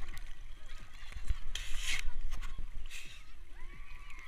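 Seawater splashing and sloshing against a camera held at the water surface by a swimmer, with a couple of louder splashes about one and a half and three seconds in. A faint call that rises and falls in pitch near the end.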